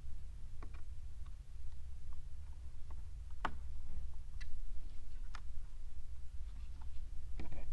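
Irregular sharp clicks and taps of hard plastic and a small hand screwdriver, the strongest about halfway through, as a screw is worked into a plastic dash-screen mounting bracket that is not lining up. A steady low hum runs underneath.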